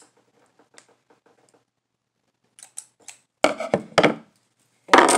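Scissors snipping off the surplus fishing line at a table: faint small clicks, then two sharp clicks about half a second apart, followed near the end by a loud scraping rustle of handling against the table.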